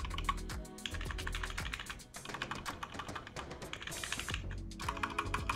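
Rapid typing on a Defender Hawk GK-418 mechanical keyboard with linear Outemu Red switches, a quick run of key clacks with a short break about two seconds in, over background music.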